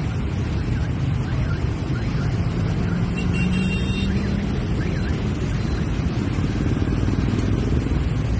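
Street traffic of many motorbikes and scooters: a steady rumble of small engines. A low steady drone stands out for about two seconds a third of the way through.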